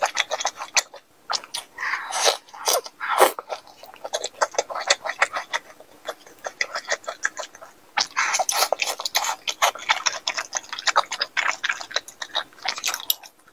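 Close-miked, wet chewing of soft malatang food (fried tofu and noodles in broth): rapid mouth clicks and smacks, easing off for a moment in the middle before picking up again.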